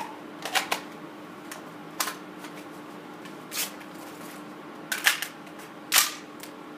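Sharp clicks and clacks of a carbine and its gear being handled: a pair about half a second in, one at two seconds, a cluster around five seconds and the loudest at six seconds, over a steady ventilation hum.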